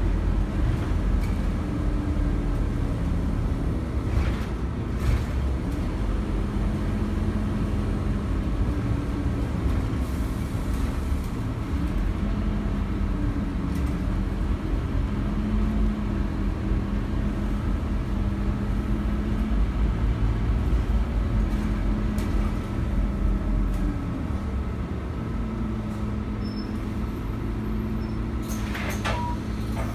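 Scania OmniCity single-deck bus heard from inside the saloon while driving: steady engine and road rumble, the engine note rising and falling as it drives, then dropping lower as the bus slows. A few short hissing bursts come near the end.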